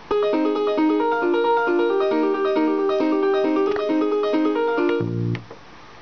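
Roland arranger keyboard's JD-800 Piano tone playing a soloed piano part of a MIDI song as repeated rhythmic chords. It stops about five seconds in, followed by a brief low note.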